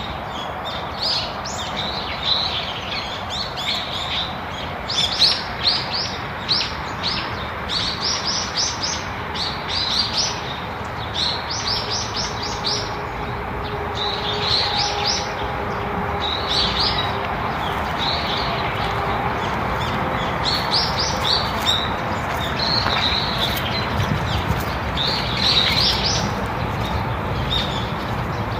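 Wild birds chirping, with quick runs of short, high notes repeating every second or two, over a steady background hiss of outdoor ambience.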